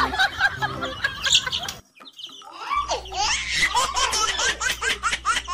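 A baby laughing and giggling in quick repeated bursts, breaking off briefly about two seconds in before starting again.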